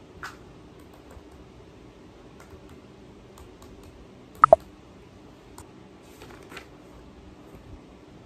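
Scattered laptop keyboard taps and clicks over a faint steady low hum, with a sharp double click about halfway through that stands out as the loudest sound.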